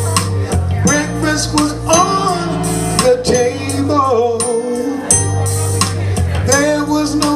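Live soul music: male voices singing a slow song over a backing band, with a steady bass line and drum beats.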